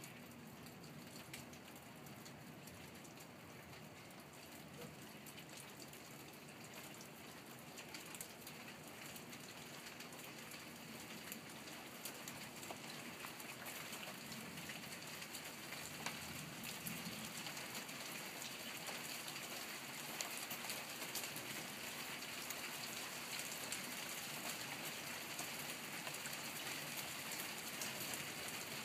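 Rain falling, with scattered sharp drop hits, growing steadily heavier over the stretch.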